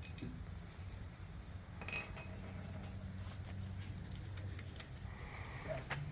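Light metallic clicks of hand tools and bolt hardware against steel crash-bar fittings, with one sharp ringing clink about two seconds in, over a low steady hum.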